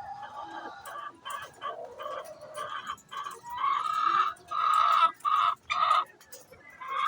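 Hen calling before laying an egg: a run of short clucks, then about four louder, longer squawks in the second half.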